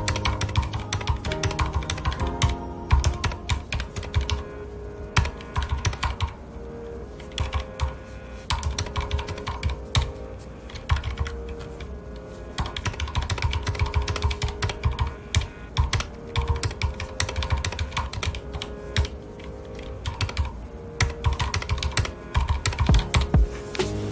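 Mechanical keyboard with red (linear) switches being typed on in quick runs of keystrokes broken by short pauses, over soft background music with held notes.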